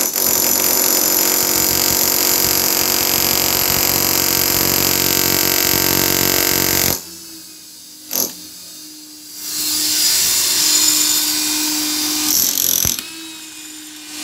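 Corded electric chipping hammer with a chisel bit hammering into a concrete-block wall, breaking the concrete. It runs continuously, cuts out about halfway through, and after a single knock starts again for a few seconds.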